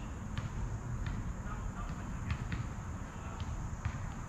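Footsteps on grass and pine-needle ground, irregular soft steps about one to two a second, over a low rumble of wind on the microphone and a steady high hiss.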